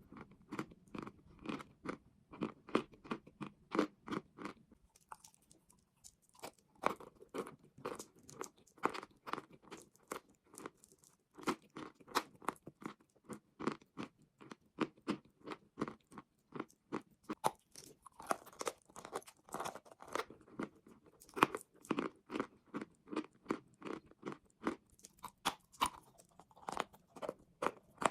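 A person chewing mouthfuls of chalk and clay close to the microphone: a fast run of dry crunches, about two to three a second, with a short pause about five seconds in.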